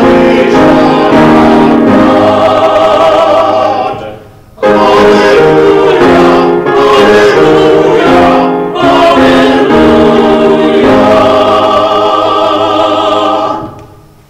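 Choir singing a hymn in sustained phrases, with a short pause for breath about four seconds in. The singing ends just before the close.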